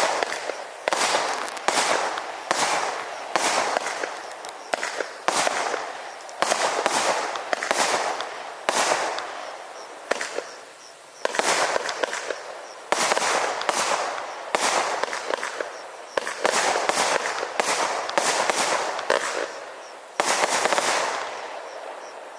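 A 25-shot firework barrage cake firing shot after shot, a sharp bang about every second, each fading quickly, over twenty in all.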